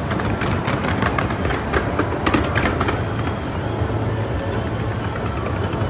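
Aerial fireworks display: a continuous low rumble of bursts with many quick crackles and pops.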